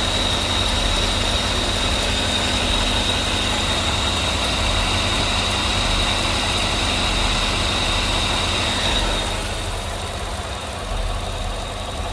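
Car engine idling steadily after its vacuum pump has been removed and the holes plugged, the pump having made a lifter-like noise. A thin high whine runs over the engine sound and fades about nine seconds in, where the sound drops a little.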